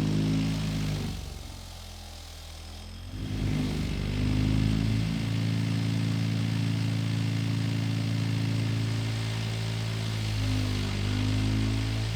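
Electric power tool motor, such as a bench grinder or buffer used in rust removal. It winds down about a second in, spins back up about three seconds in and runs steadily, its pitch dipping briefly near the end.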